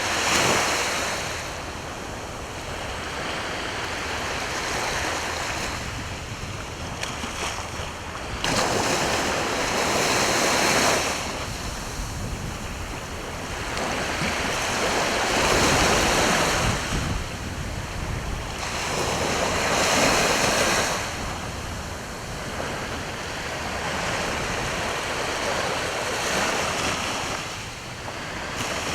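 Sea waves washing onto the shore, the surf swelling and falling back in a slow rhythm every five or six seconds.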